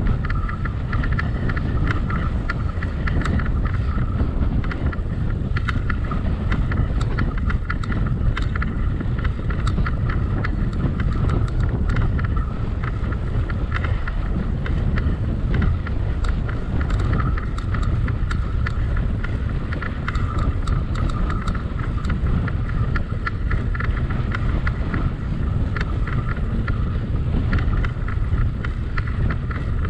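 Wind rushing over the microphone of a camera riding on a moving bicycle, with steady rolling noise and scattered light clicks and rattles throughout.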